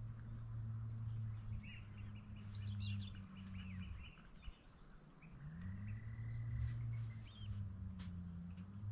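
Shorebird-side birds chirping and calling in quick short notes, then a single thin steady whistle, over a low hum that fades out about halfway through and comes back rising in pitch.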